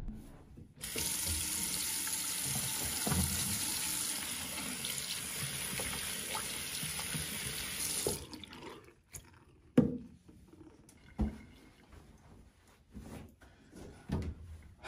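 Bathroom tap running steadily into a sink for about seven seconds, then shut off; a few short knocks and taps follow.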